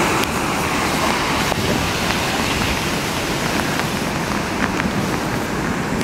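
Thunderstorm wind blowing steadily and buffeting the microphone.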